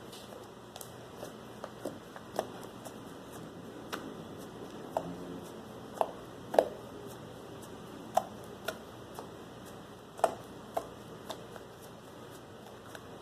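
Glitter slime being squished and stretched by hand: irregular sharp, sticky pops and clicks, about one or two a second, the loudest about six and a half and ten seconds in.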